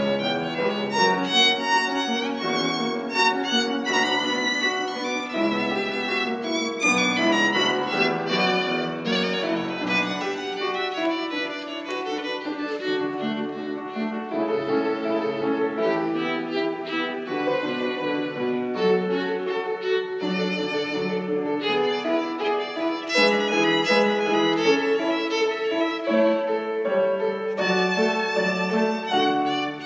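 Solo violin played with the bow: a running passage of quick notes with no pause, a little quieter for a few seconds near the middle.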